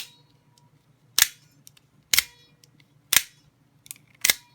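Microtech Troodon-copy double-action OTF knife being fired open and shut: its spring-driven blade shoots out and snaps back in with five sharp metallic snaps about a second apart, some followed by a short ring. The knife is being worked to check that it functions after reassembly.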